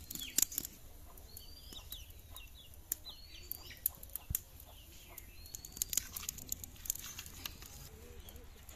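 Birds chirping in short, rising and falling calls, with scattered sharp clicks and taps from hands working turmeric into fish pieces on a steel plate.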